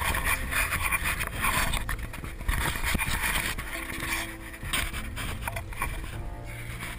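Wind rushing over the microphone and water noise around a small aluminium fishing boat, over a low steady rumble. The rushing is strongest in the first half and eases after about the middle.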